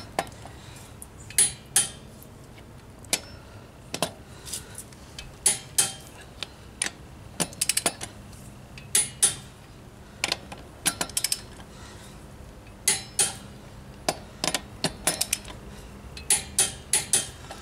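Click-type torque wrench set to 110 lb-ft clicking as it reaches torque on each wheel lug nut. The socket and extension clink as they go onto the nuts. The clicks come irregularly, singly or in quick clusters, as the nuts are checked one after another.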